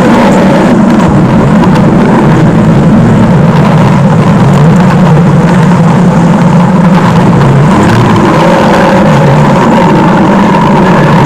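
Stomach growl sound effect: a loud, continuous low rumble that wavers in pitch without a break.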